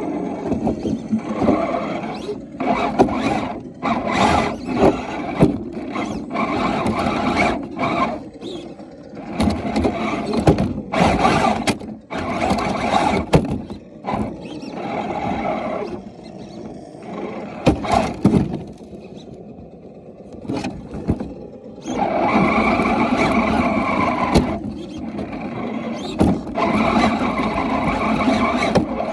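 Onboard sound of an electric RC rock crawler: its motor and gear drivetrain whining in stop-start bursts as the throttle is worked, with a longer steady whine from about three-quarters of the way in. Twigs and brush scrape and crackle against the body as it pushes through.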